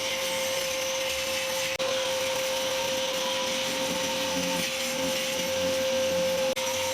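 Power tool running steadily with a constant high whine, cutting through plaster wall, with grinding and scraping noise. The sound drops out for an instant twice.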